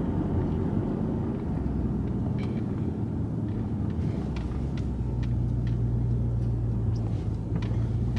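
Car cabin while driving: the 6.4-litre V8 and road noise make a steady low drone, which grows a little stronger about five seconds in.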